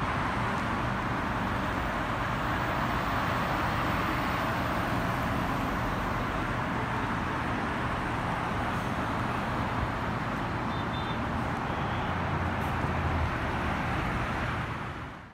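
Steady road traffic noise from cars passing on a multi-lane street, fading out near the end.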